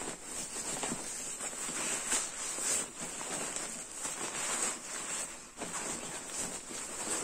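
Nylon shell fabric of a goose-down sleeping bag rustling and swishing in irregular swells as it is stuffed by hand into its compression sack.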